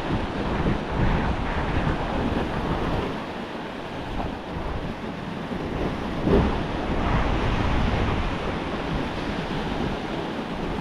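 Surf washing onto a beach, with gusty wind buffeting the microphone as a low rumble that rises and falls.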